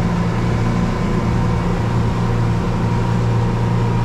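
Yamaha F90 four-stroke outboard running steadily under way, a steady low drone with the rush of water along the aluminum hull, heard from inside the boat's enclosed cabin.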